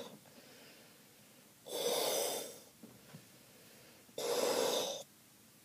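Two long puffs of breath blown into a rubber balloon to inflate it, each about a second long, the second starting about two and a half seconds after the first.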